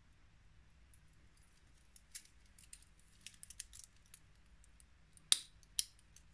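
Stainless steel link bracelet of a Swatch Irony chronograph jingling lightly as it is fitted round the wrist, then its folding clasp snapping shut with two sharp clicks about half a second apart.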